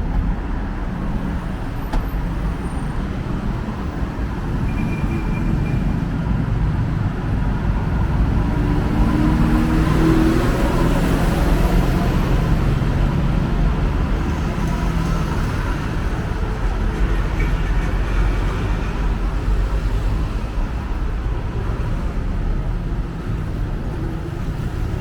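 City road traffic: a steady rumble of passing cars and other motor vehicles. One engine grows louder about ten seconds in as it passes close by.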